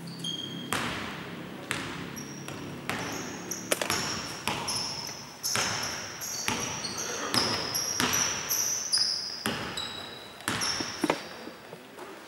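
Basketball being dribbled on a hardwood court, a bounce about every second, mixed with the high, short squeaks of sneakers, with the echo of a large hall.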